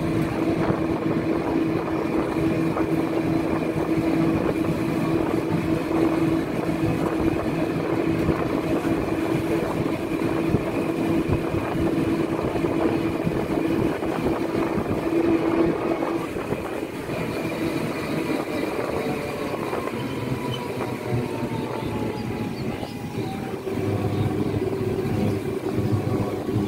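Running noise of a moving road vehicle, heard from on board: a steady engine or motor hum over a rushing noise, with the hum changing pitch in the last few seconds.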